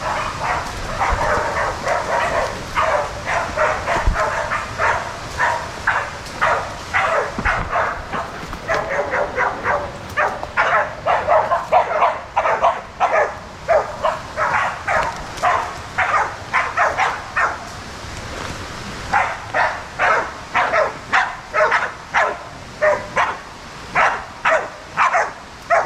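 Hunting dogs bail-barking at a boar they are holding at bay: a long, steady run of barks about two a second, with a brief pause about 18 seconds in before it starts again.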